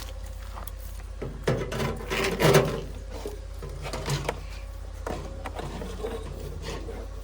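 A run of irregular knocks and scrapes, loudest about two and a half seconds in, over a steady low hum.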